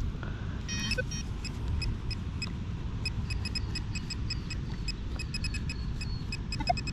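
A handheld metal-detecting pinpointer probe beeping with short, high chirps, a few a second, as it is worked over a coin target in the hole. Near the end the beeps come faster as it closes in on the coin. A steady low rumble lies underneath.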